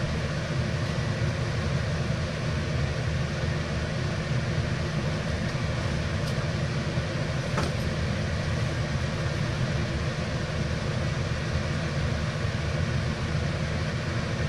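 A steady low mechanical drone that does not change, with two faint light clicks about six and seven and a half seconds in.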